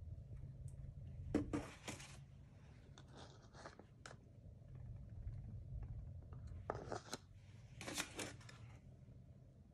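Oil filter and plastic drain funnel being handled: four short bouts of scraping and rattling, two near the start and two near the end, over a faint low hum.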